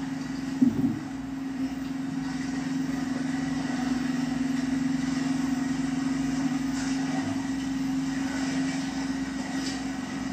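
Engine of an outrigger fishing boat running steadily, heard through a television's speaker as an even hum. A brief clatter of knocks comes a little under a second in.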